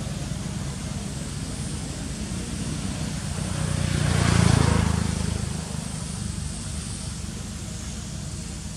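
Drone of a passing engine. It hums steadily, grows louder to a peak about four and a half seconds in, then fades away.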